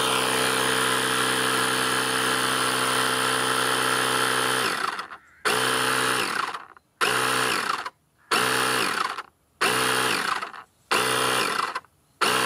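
Parkside PKA 20-Li A1 20 V cordless compressor running steadily while inflating a football to a preset 0.5 bar, then cutting out and restarting in six short bursts about a second and a half apart, each winding down with a falling pitch.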